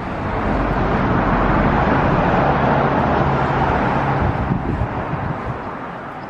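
A car driving past close by: engine and tyre noise swells, then fades away over the last few seconds.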